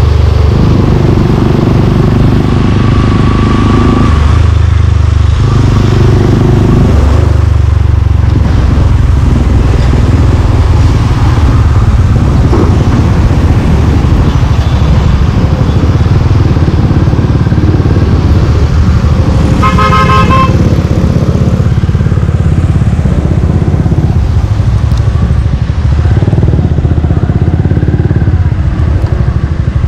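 Suzuki Gixxer 155's single-cylinder engine running through an aftermarket exhaust while riding in traffic, its note shifting several times in the first seven seconds. A vehicle horn sounds once, for about a second, two-thirds of the way in.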